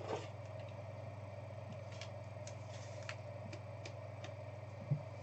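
Steady low electrical hum with faint, scattered clicks and ticks, and one soft thump near the end.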